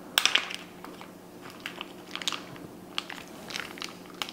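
Zip-top plastic bag crinkling as its zipper seal is pulled open at one corner: a cluster of crackles near the start, then scattered clicks and rustles.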